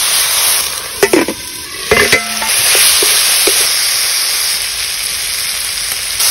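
Ivy gourd sizzling in a hot metal kadai with water just added. A wooden spatula stirs and knocks against the pan, loudest about one and two seconds in, with a few lighter clicks after.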